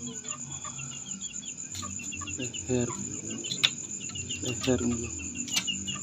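Crickets and other insects chirping steadily: a continuous high trill with rapid repeating chirps under it. A few short low vocal sounds come through in the middle, and a sharp click comes about three and a half seconds in.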